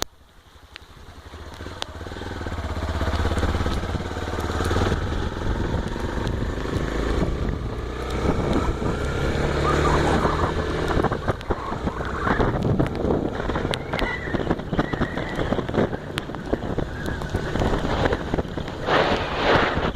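Honda XR250 Tornado's single-cylinder engine pulling away, its sound building over the first few seconds, then running at road speed under steady wind and road noise. A louder rush of noise comes near the end.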